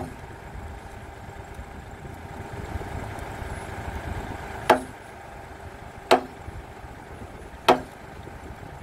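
Hammer blows on a wooden framing beam, likely driving nails: one sharp strike at the start, then after a pause three more about a second and a half apart, each with a short ringing tail. A steady low rumble runs underneath.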